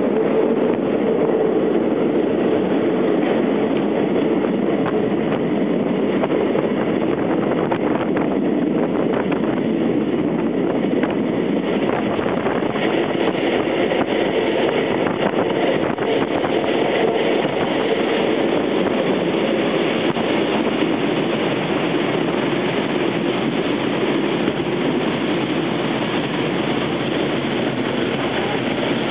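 Vintage railway carriage running on the track, heard at the open window: a steady rumble of wheels on rail, with light clicking over rail joints and points around the middle.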